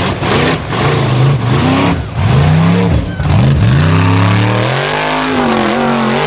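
Formula Offroad unlimited-class buggy's racing engine revving hard in repeated sharp bursts, pitch swinging up and down, then held at high revs for a couple of seconds as it climbs a steep dirt hill.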